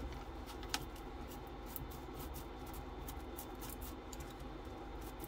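Faint scraping and prodding of a small screwdriver against two leaked, corrosion-crusted batteries stuck fast in an old AVO meter's battery compartment, with a small click a little under a second in.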